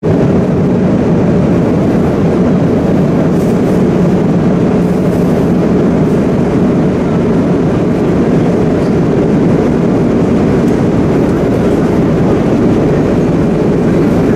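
Steady drone of a Boeing 777 passenger cabin, the noise of the jet engines and airflow heard from a seat, deep and unchanging throughout.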